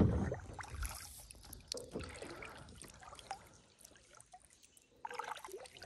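Water trickling and lapping around a small kayak, with scattered light clicks and knocks from gear on the boat.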